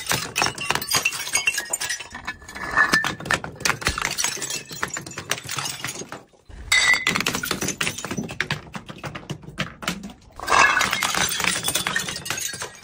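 Glass bottles smashing on stairs, with bottles and broken shards clattering and clinking down the steps. Fresh smashes start about six and a half and ten and a half seconds in.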